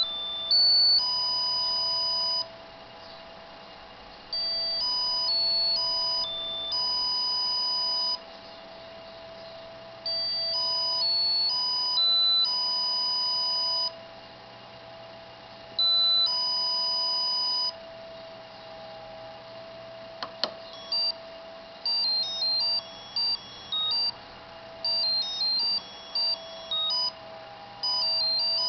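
Monophonic ringtone melodies beeped out as square-wave tones by an ATmega8 AVR microcontroller playing RTTTL ringtones. Several slower phrases are separated by pauses. About twenty seconds in there is a single click, followed by a quicker tune of short notes.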